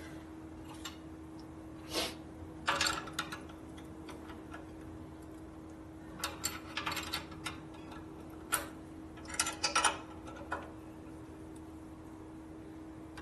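Scattered light metal clicks and clinks of hand tools working a leaking chrome brake-line fitting as it is tightened further, over a steady low hum.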